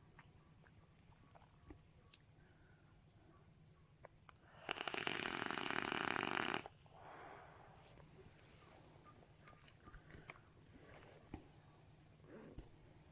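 Steady high-pitched chorus of insects, with a few faint clicks. About a third of the way in, a loud rasping noise made of rapid fine ticks runs for about two seconds and cuts off suddenly.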